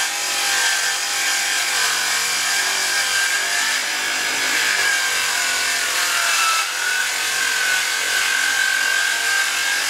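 Table saw cutting a strip of dark hardwood: a steady running noise with a whine that wavers and dips slightly about two-thirds of the way through as the blade takes the load.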